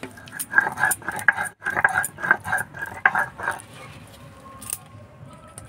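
Stainless steel bowl clinking and ringing under a quick run of knocks and scrapes as wet-ground semolina batter is scraped off a stone grinding slab into it. The knocking stops about three and a half seconds in, leaving soft handling noise and one sharp click.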